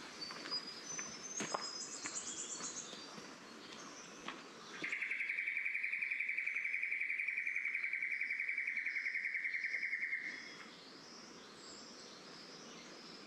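Rainforest birdsong: high chirps, then a loud, fast-pulsing trill that starts about five seconds in and lasts about six seconds.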